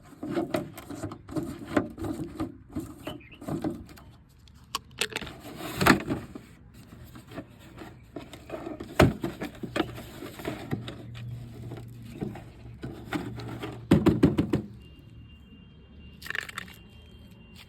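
Irregular knocks, taps and scrapes, with sharp louder knocks about 6, 9 and 14 seconds in, then quieter after about 15 seconds.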